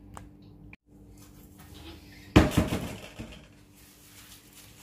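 Kitchenware clattering once about halfway through: a sharp knock that rings briefly, with a couple of smaller knocks after it. A steady low hum runs underneath.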